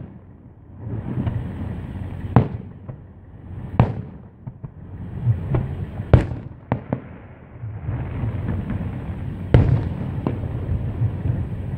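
Aerial fireworks shells bursting: a string of sharp bangs, about five loud ones, with a low rumble swelling between them.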